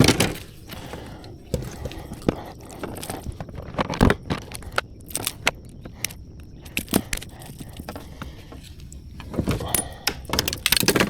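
Irregular clicks, knocks, rattles and scrapes of fishing tackle being handled in a kayak while a bass is landed, with a sharp knock about four seconds in and a busier flurry near the end.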